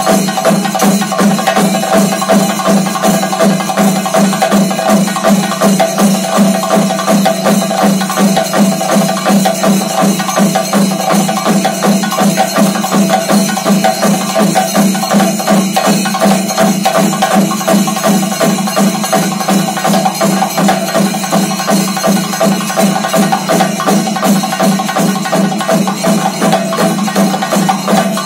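Double thayambaka on Kerala chenda drums: two lead drummers play fast, dense stick strokes over the steady beat of the accompanying chendas and ilathalam cymbals, with no break.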